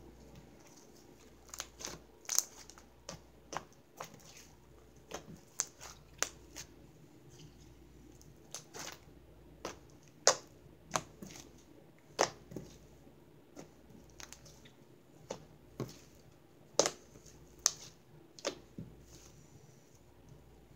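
Butter slime being stretched, folded and pressed by hand, giving irregular sharp clicks and pops, about one or two a second.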